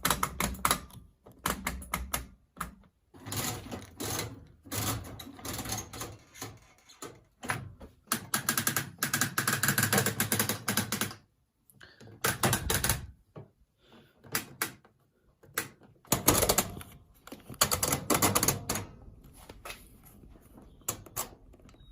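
Rotary program selector dials of old washing machines being turned, their mechanical timers clicking through the program positions in fast runs of clicks with short pauses between.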